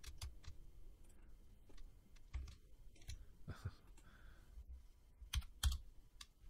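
Scattered, irregular clicks from a computer keyboard and mouse, a few of them sharper and louder, over a low background hum.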